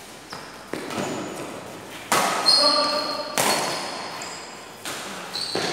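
Badminton rackets striking a shuttlecock in a rally, about six sharp smacks roughly a second apart, the loudest about two and three and a half seconds in, each echoing in a large hall. Shoes squeak briefly on the court between the hits.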